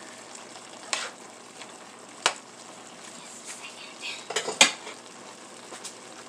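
A cooking utensil knocking and scraping in a pan a handful of times, loudest about two-thirds of the way through, over a soft steady sizzle of rice reheating on the stove.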